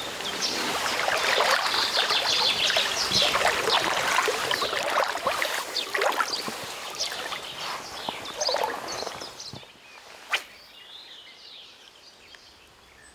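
Legs in chest waders wading through a shallow river, water splashing and swishing around them with each step. About three-quarters of the way through the wading stops and the sound drops away, followed by a single sharp click.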